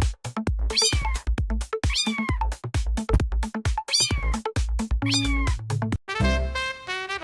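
Meme music over a steady beat with a cat meow sample repeated about once a second, each meow falling in pitch. About six seconds in the track changes to a melodic section without the meows.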